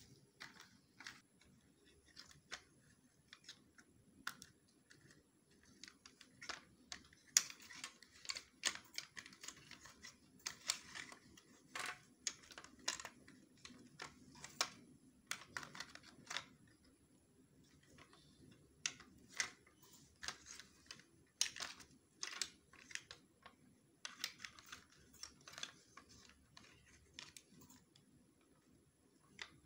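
Faint, irregular clicks and taps of a plastic toy makeup case being handled, its lids and pieces knocking as it is opened and fiddled with, coming in busy spells.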